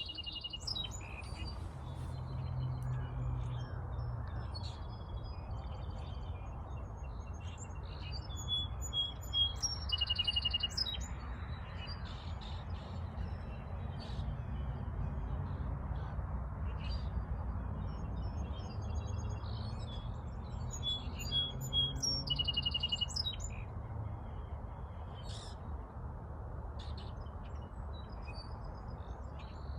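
Several wild birds chirping and calling, short repeated notes and trills coming and going throughout, over a steady low rumble of wind.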